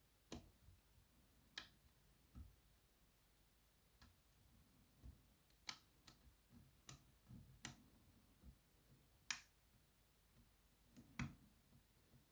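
Faint, irregular clicks and taps of a hook pick working the pins of a BKS 88 pin-tumbler cylinder under tension, about a dozen over several seconds.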